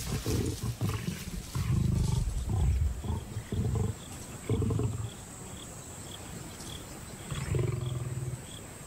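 Lions growling in a fight over a carcass, a male lion pulling rank to drive lionesses off the kill. A string of short, deep growls comes through the first five seconds, then a quieter spell, then another growl near the end.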